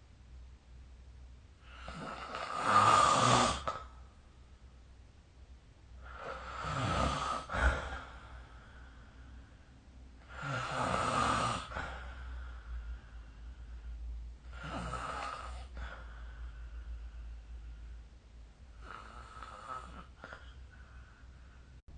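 Snoring during sleep: five snores about four seconds apart, the first the loudest and each later one fainter. A steady low hum runs underneath.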